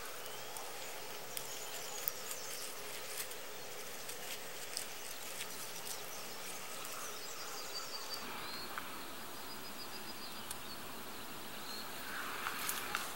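Quiet outdoor background: a steady hiss with faint, brief high-pitched calls and a few small clicks, and a soft rustle near the end as fingers handle the split hop stem.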